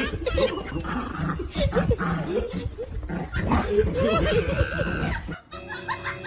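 A small dog making vocal noises that slide up and down in pitch, mixed with a person's voice. About five seconds in they cut off and music with steady tones takes over.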